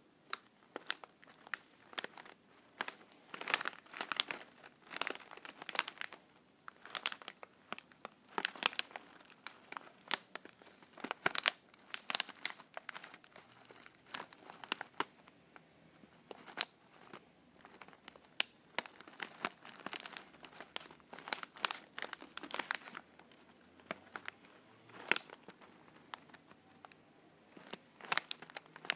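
Glossy plastic Dreamies cat-treat pouch being crinkled and squeezed in the hands: irregular sharp crackles that come in quick clusters with short pauses between them.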